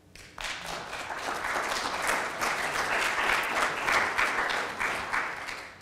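An audience applauding, starting just after the start and dying away near the end.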